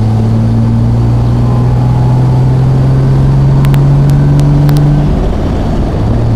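1972 Triumph TR6's straight-six engine pulling the car along through its stock exhaust. Its note rises steadily, then falls away about five seconds in and settles back to a lower steady pitch.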